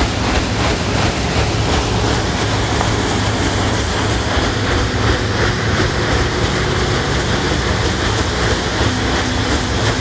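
Red stern paddlewheel of a paddlewheel boat turning and churning the water into splashing foam, over a steady low hum; the splashing grows louder about two seconds in.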